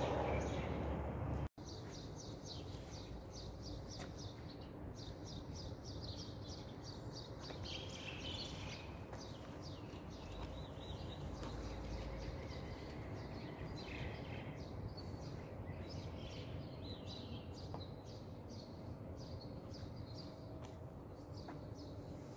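Small birds chirping in quick, repeated high chirps, with a few longer calls, over steady low street background noise.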